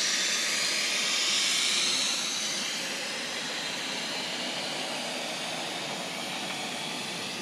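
Air hissing steadily out of a truck tire through a Staun preset tire deflator, airing the tire down for off-road driving. The hiss eases slightly after about two seconds.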